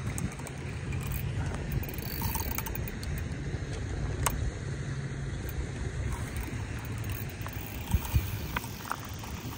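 Steady rush of fast river water under a low rumble of wind on the microphone. One sharp click about four seconds in and two quick knocks near the end.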